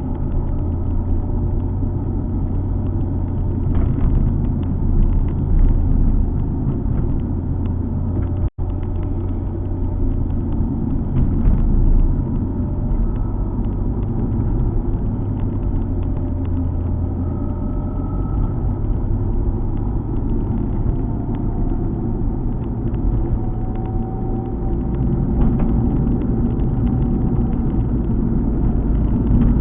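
Alfa Romeo 147 GTA's 3.2-litre V6 engine and road noise while driving, a steady low rumble with the engine note drifting up and down slightly. The sound cuts out for an instant about eight and a half seconds in.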